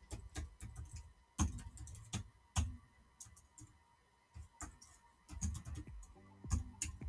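Computer keyboard typing: irregular keystroke clicks, a few much louder strokes among them, with a short lull around the middle.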